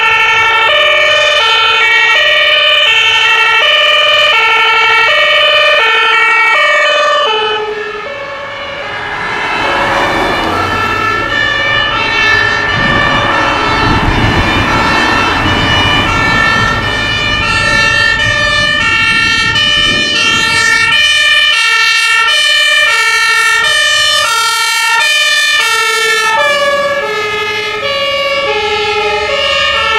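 German two-tone fire service sirens (Martinshorn) alternating between two pitches as emergency vehicles pass. In the middle, a fire truck's engine and tyres drive past close by. Later, two sirens sound at once, out of step.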